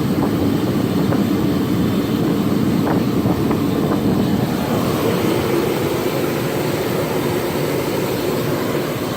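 A loud, steady low rumble with a few faint knocks in the first few seconds.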